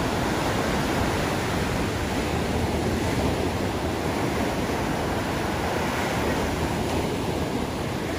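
Ocean surf breaking and washing up onto a sandy beach: a steady rush of white water.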